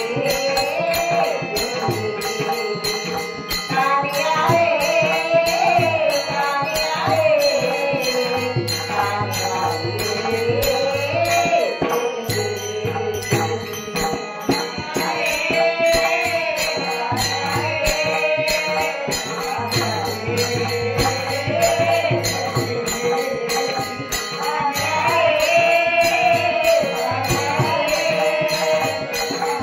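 A woman singing a Marathi gaulan, a devotional bhajan song, with melismatic held and bending phrases, over a fast steady percussion beat and a low repeating bass tone.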